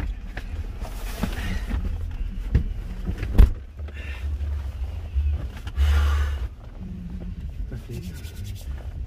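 Someone getting into an SUV's driver seat: clothing and seat rustling with scattered knocks, and the driver's door shutting with a thump about three and a half seconds in, over a steady low rumble.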